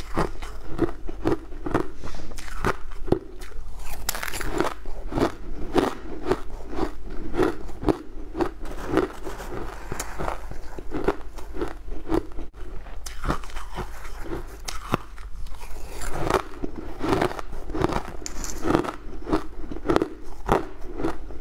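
Close-miked crunching of crushed coloured ice being bitten and chewed: a steady run of crisp crunches, about two to three a second, with a few scrapes of a metal spoon digging into the ice.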